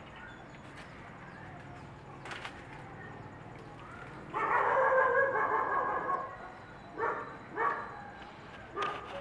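A dog calling: one long, drawn-out call about four seconds in, then short barks about half a second to a second apart near the end.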